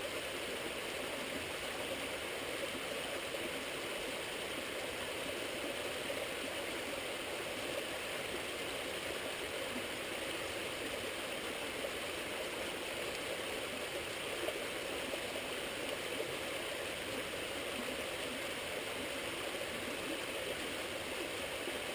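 Small creek flowing: a steady rush of running water.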